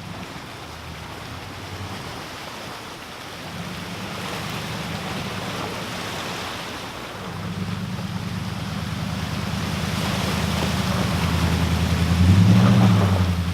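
An off-road vehicle's engine pulling, getting louder, with a short rise and fall in revs near the end, over a steady rushing noise.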